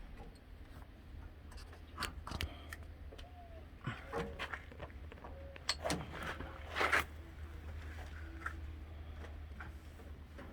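Scattered metal clinks and knocks of the new chain tensioner pulley, its bolt and hand tools being handled while it is fitted to the baler, with a few short squeaks and a louder clatter about 7 seconds in, over a steady low hum.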